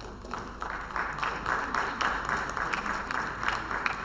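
Audience applauding: many overlapping hand claps that swell about half a second in and ease off near the end.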